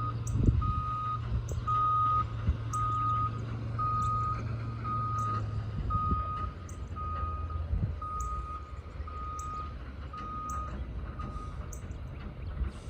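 Reverse alarm of a construction work vehicle beeping steadily about once a second, over its engine running, the beeps stopping shortly before the end.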